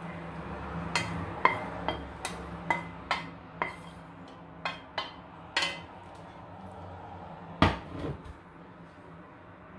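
Wooden spatula knocking and scraping against a stainless steel frying pan as stir-fried water spinach is pushed onto a ceramic platter: a quick, uneven series of sharp knocks over the first several seconds, then one louder clunk about three-quarters of the way in. A faint steady hum runs underneath.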